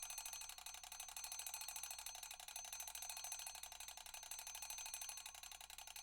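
Mechanical alarm clock ringing: a rapid, even rattle of metallic bell strikes with a high ring.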